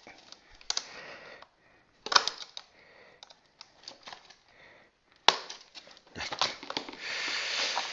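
Scissors clicking and snipping at the ties that hold a toy robot in its cardboard box, with rustling of the packaging. One sharp click about five seconds in, and a longer stretch of rustling near the end.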